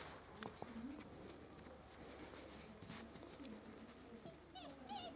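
Faint high whines from Samoyed puppies, with a few short whimpers that rise and fall near the end.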